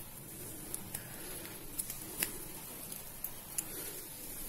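Faint handling noise from a plastic LED bulb body being twisted in the fingers as its driver board and wires are worked into place: a few small sharp clicks over light rubbing.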